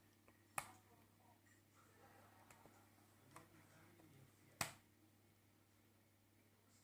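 Two sharp clicks about four seconds apart, with a few fainter ticks between, over a faint low hum: small switches on a model railway mimic control panel being flipped to light its LEDs.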